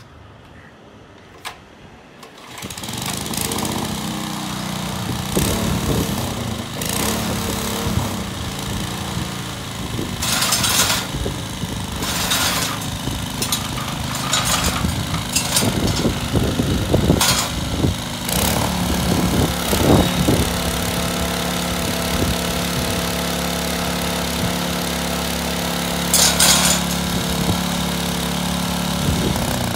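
Small 2 hp engine of a Yanmar Mighty Tiller mini cultivator starting up about two seconds in and running. Its speed and loudness vary, with several brief louder bursts, before it settles into a steady run for the last several seconds.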